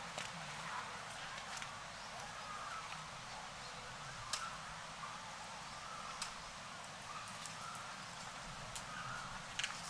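Outdoor ambience: a steady hiss with a few sharp clicks or taps scattered through it and several faint, short squeaks.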